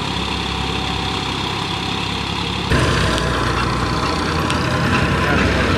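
Wheat thresher running with the engine that drives it: a steady mechanical drone with a low engine hum and a broad rushing hiss. About halfway through it turns abruptly louder and hissier.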